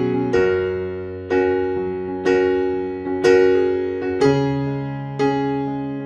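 Background music: slow, gentle piano, a note or chord struck about once a second and left to ring and fade.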